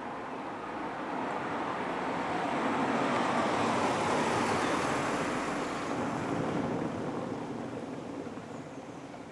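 A road vehicle passing by: a broad noise that swells to a peak about four seconds in and then fades away.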